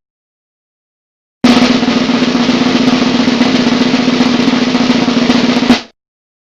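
Snare drum roll, about four seconds long, ending on a single louder hit.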